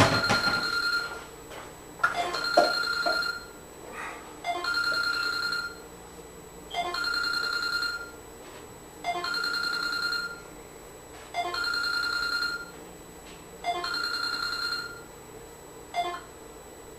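A telephone ringing: a repeated electronic ring tone, seven rings about two seconds apart, each lasting about a second, the last one cut short.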